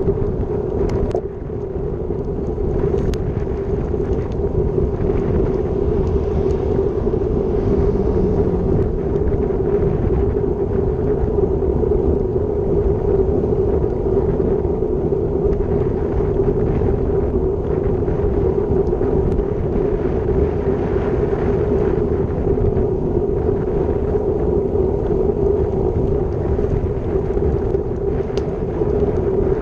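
Wind noise rushing over the Garmin VIRB action camera's microphone as the bike moves at about 30 km/h. It is a steady rumble with a constant hum underneath.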